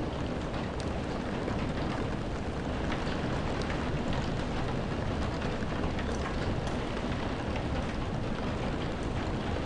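Heavy rain beating on windows, heard from indoors: a steady wash of rain with scattered single drops ticking against the glass.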